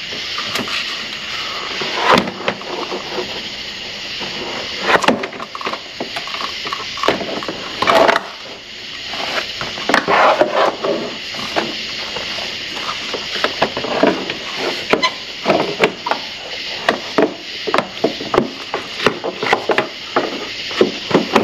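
Plastic radiator fan shroud being worked into place in a truck's engine bay: irregular knocks, clunks and rattles of plastic against the radiator and its mounts, over a steady hiss.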